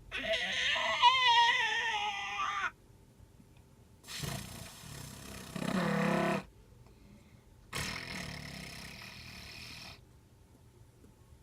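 A child's voice making weird animal-like noises, three in a row: first a long, high cry with a wobbling pitch lasting over two seconds, then a shorter one that drops low near its end, then a rougher, breathier one.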